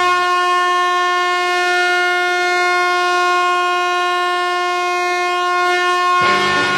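Music: a single steady, horn-like note held for about six seconds, then the full band comes in near the end.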